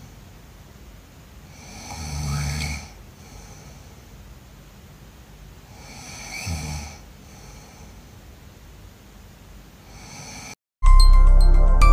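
A sleeping person snoring: two loud snores about four seconds apart, each with a deep rattle. Near the end the sound cuts off and loud music begins.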